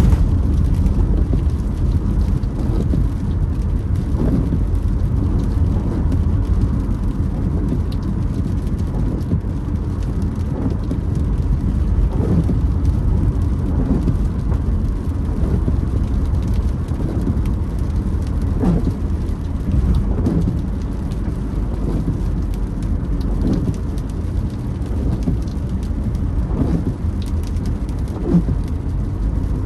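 Rain on a moving car with a steady low road rumble, heard inside the car. The windshield wipers give repeated short creaks every couple of seconds as they sweep the wet glass.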